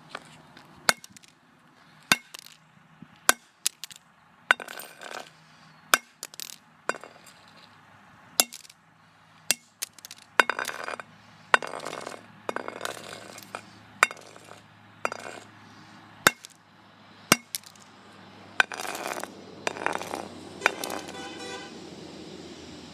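A flip phone being struck over and over, sharp hard blows about once a second, with noisy scraping and crackling between some of the blows.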